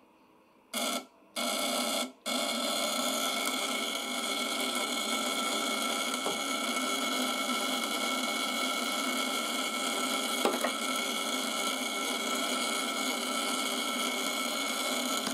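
Homemade vibrating contact breaker with tungsten-carbide (widia) points, driving an ignition-type coil from a 12-volt battery, buzzing steadily. It starts twice for a moment as the wire is touched to the battery, then runs on continuously from about two seconds in.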